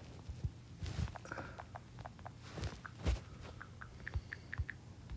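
Computer keyboard keys clicking in irregular runs of typing, over a low steady hum.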